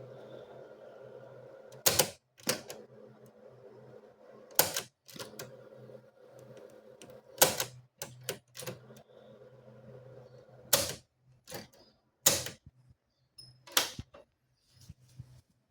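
Loud mechanical clicks and clacks of the National Panasonic SG-1060L stereo's keys and switches being worked, about ten at uneven intervals, over a faint steady hum.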